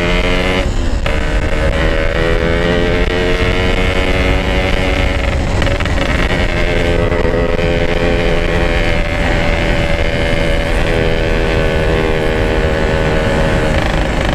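Yamaha RX-King 135 cc single-cylinder two-stroke motorcycle running at steady cruising revs, heard from the rider. The buzzing exhaust note breaks briefly about a second in, with wind noise rushing underneath.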